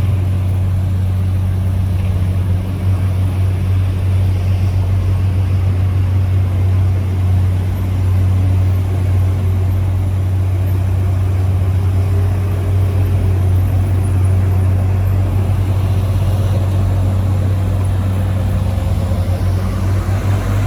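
Heavy earthmoving-site diesel engine running steadily with a deep, constant hum, with faint wavering higher tones over it.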